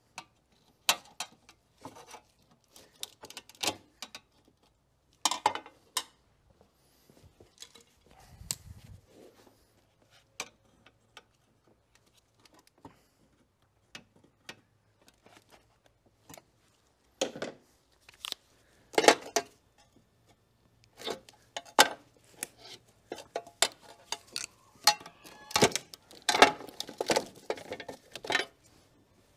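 Irregular metallic clinks, clicks and knocks of hand tools and loose metal parts being handled while the battery tray is unbolted and cleared from a car's engine bay. The knocks come in scattered clusters and grow busier over the last ten seconds or so.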